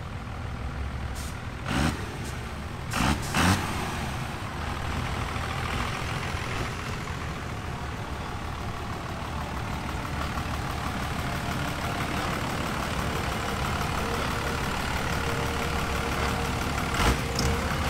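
A rat rod's large turbocharged engine runs as the car rolls slowly past. A few short, loud bursts stand out over the steady rumble, about two and three seconds in and again near the end.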